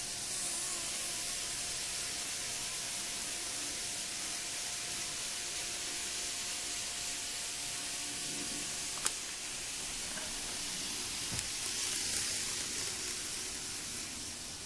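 Kato N-scale model bullet train running along the track: a steady hissing whirr of motor and wheels, with a faint steady whine that drops out about nine seconds in.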